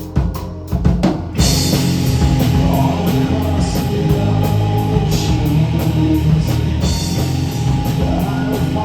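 Live rock band playing loud, with drums, guitar and bass. After a second and a half of separate rhythmic hits, the full band comes in together, cymbals washing over the top.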